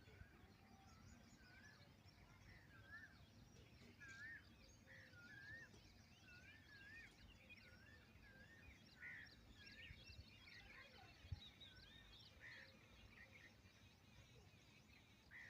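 Faint birdsong: a short, wavy whistled note repeated over and over, with scattered higher chirps from other birds. A single brief thump about eleven seconds in.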